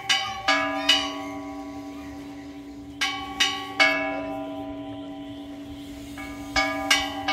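Church bell struck by hand in the belfry, three quick strokes at a time, with the groups about three seconds apart and each stroke ringing on between them.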